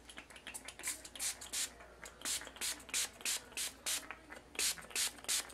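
Trigger spray bottle spritzing application fluid onto a glass surface: a quick run of short hissing squirts, about three a second, after a few faint ticks at the start.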